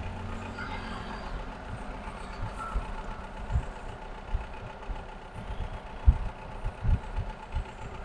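Faint background engine rumble, like idling road traffic, with a few short low thumps.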